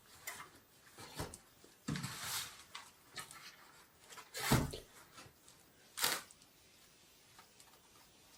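Packaging being opened and handled while a chimney pipe is unpacked: a few separate rustles and knocks, the loudest about four and a half seconds in and another about six seconds in.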